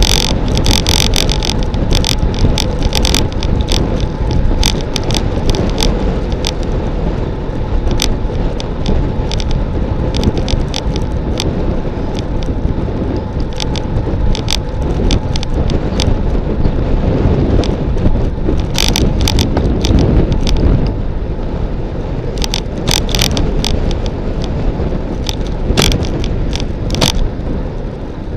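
Wind rushing over the microphone and tyre noise of a road bike descending at speed on asphalt, with irregular sharp clicks and rattles scattered throughout.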